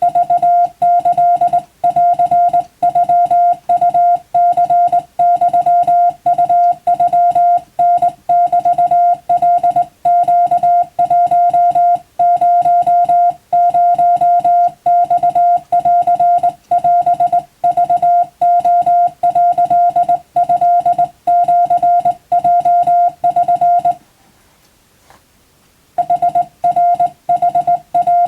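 Japanese wabun Morse code keyed as a single steady mid-pitched beep tone, a fast run of short and long beeps with short gaps between characters. The keying stops for about two seconds near the end, then starts again.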